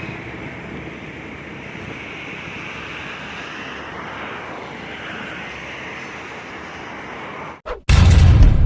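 JCB backhoe loader's engine running steadily. The noise cuts out about seven and a half seconds in, and loud music with a heavy bass beat starts right after.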